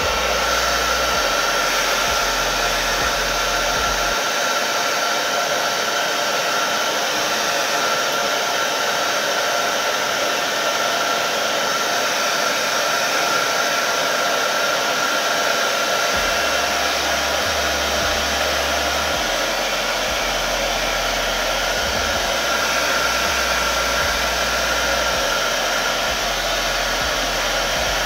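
Handheld hair dryer running steadily, blowing air, with a thin steady whine over the rush of air.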